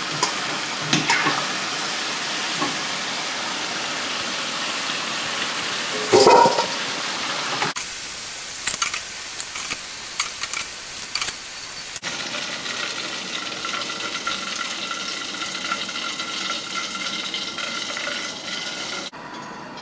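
Hot oil sizzling steadily as cornstarch-coated shrimp deep-fry in a stainless-steel pot, with a few light clinks of a wire skimmer as the shrimp are lifted out into a metal bowl.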